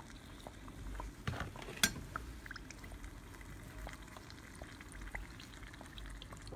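Dough fritters frying in hot oil in a saucepan: a faint steady sizzle with small scattered crackles, and one sharper click about two seconds in.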